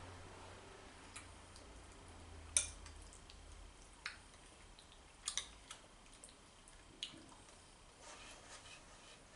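Metal spoon clinking and scraping against a white ceramic plate while scooping up curry rice: a handful of light, sharp clinks spread apart, the loudest about two and a half seconds in.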